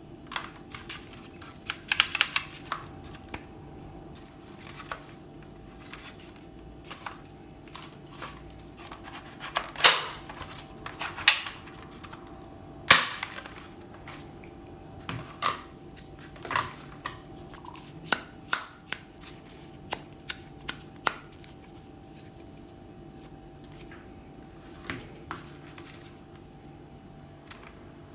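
Irregular plastic clicks, snaps and light knocks from a cheap plastic toy gun and its packaging being handled, with a few louder snaps scattered among softer ones.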